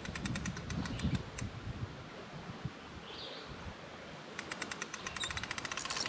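Mitchell 408 spinning reel being cranked, its rapid ratchet clicking in two spells: one to about a second and a half in, then again from about four and a half seconds in, after a quieter stretch.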